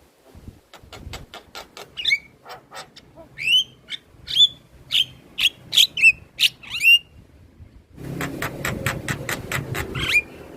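Javan myna calling in a fast run of sharp clicks mixed with short harsh whistled notes that swoop up and down. It pauses about seven seconds in, then starts again with more clicks and a swooping whistle over a louder background hiss and rumble.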